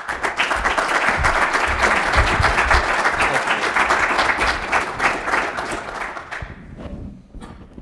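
Audience applauding. The clapping starts all at once and dies away over the last couple of seconds.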